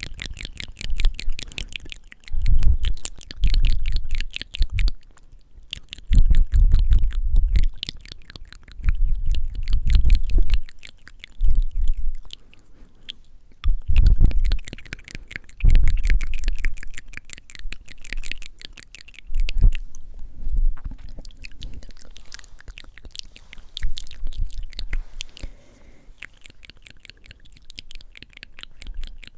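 Very close-miked wet mouth sounds: rapid moist clicks and smacks, broken by breaths blown onto the microphone in low rumbling gusts every second or two.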